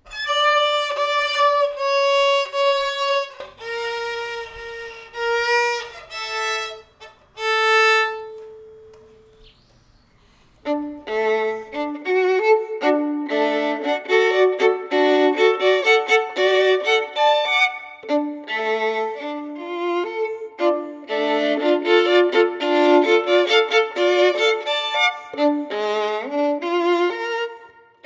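Solo violin playing. First come slow, long bowed notes and a few shorter ones. After a brief near-quiet gap about ten seconds in, a fast, fluent passage of many notes runs on in a lower range.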